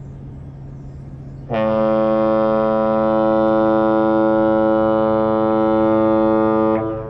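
Great Lakes freighter H. Lee White's horn sounding one long, steady blast of about five seconds, the opening long blast of the captain's salute (one long, two short). A low steady rumble runs underneath.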